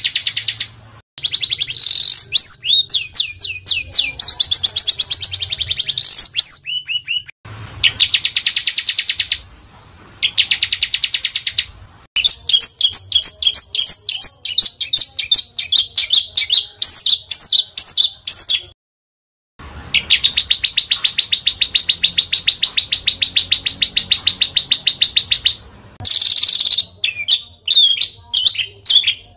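Small songbirds singing rapid, dense strings of high chattering notes and trills in several separate recordings. They are joined by sudden cuts, with a full second of silence at one cut near the middle.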